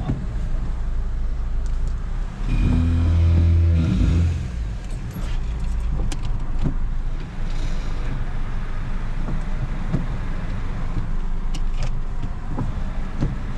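Car engine running at low speed, heard from inside the cabin, with a brief louder stretch of engine noise about three seconds in.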